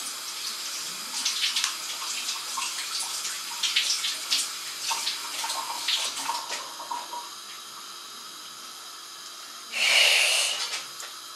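Water running in a kitchen sink, with many small clicks and clatters over the first half. About ten seconds in comes a louder rush of water lasting about a second.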